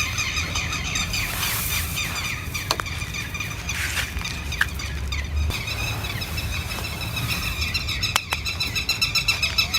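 A bird chirping over and over, the calls coming faster and more evenly near the end, with a few sharp snaps and a low steady rumble underneath.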